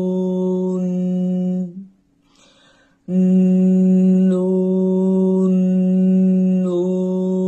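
A voice holding a long nasal hum on one steady pitch, as a soft-palate toning exercise. The tone colour changes a few times while the pitch stays put. A short pause for breath comes about two seconds in, and then the hum starts again on the same note.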